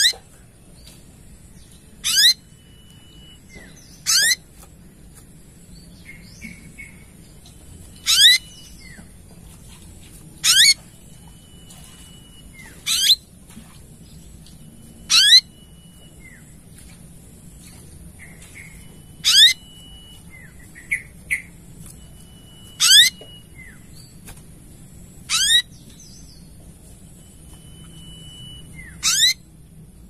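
Olive-backed sunbird (kolibri ninja) singing: a short, high, quick sweeping phrase repeated every two to four seconds, with a few softer chips in between.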